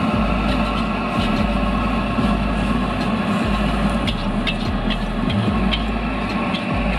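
Noodles stir-frying in a wok over a high gas flame: the steady roar of the burner and sizzle, with the metal spatula scraping and clanking against the wok, the clanks coming most often between about four and six seconds in.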